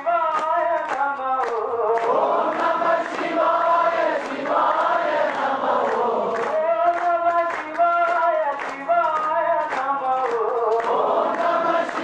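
Devotional bhajan sung by a group of voices in long, sustained phrases, with a steady percussive beat.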